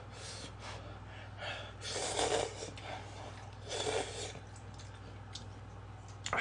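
A person slurping cup ramen noodles: two noisy slurps, about two seconds in and again near four seconds, with fainter smaller sucks before them.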